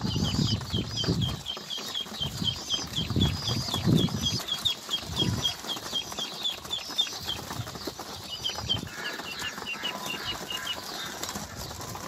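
A flock of domestic pigeons feeding on scattered grain, with low fluttering wing flaps in the first few seconds. Over it runs a steady series of short high peeping calls, about four a second, that pauses briefly about eight seconds in.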